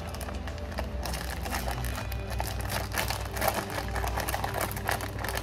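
Plastic wrapper of a pack of crackers crinkling and rustling in irregular bursts as it is handled while someone tries to open it.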